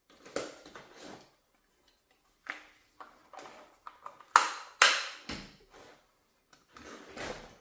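Clicks, knocks and scraping of a B&T SPR300 rifle's parts being handled and fitted together, with two loud sharp clacks close together about halfway through and a longer scrape near the end.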